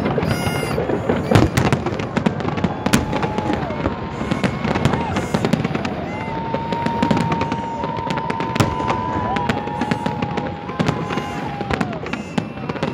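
Aerial fireworks bursting: a dense run of bangs and crackles. A long held high tone sounds over them for a moment a few seconds in, then again through most of the second half.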